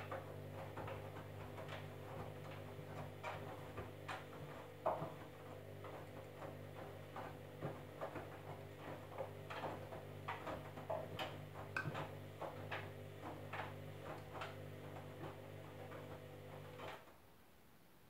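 Candy front-loading washing machine tumbling its wash: a steady motor hum with many small clicks and knocks from the load turning in the water-filled drum. The drum stops near the end and the hum cuts off.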